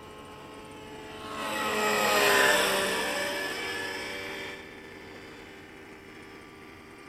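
Nitro-powered radio-controlled helicopter flying past. Its engine and rotor sound swells about a second in, peaks, and fades after about four and a half seconds, the pitch dropping as it goes by.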